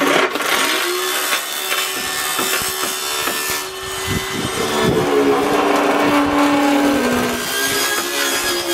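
Circular saw ripping lengthwise through a thin plywood sheet, starting abruptly and cutting steadily, its motor whine dipping in pitch now and then as the blade takes load.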